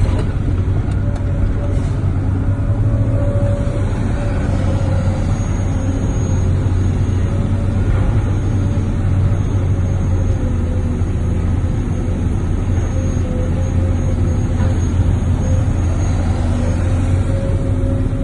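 Large engine of heavy machinery running steadily, a loud low drone with a thin steady whine above it.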